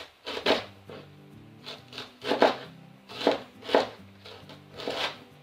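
Kitchen knife shredding a head of white cabbage into thin strips on a wooden cutting board, a crisp slicing stroke about once a second at an uneven pace, with quiet background music underneath.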